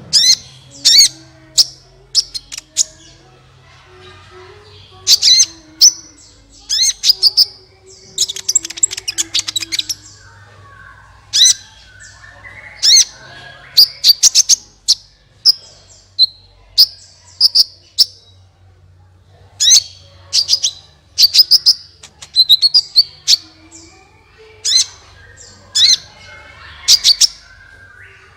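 Sunbird (the bird Indonesian keepers call kolibri) singing: loud, sharp, high-pitched chirps given in quick clusters with short pauses between, and a fast trill about a third of the way in.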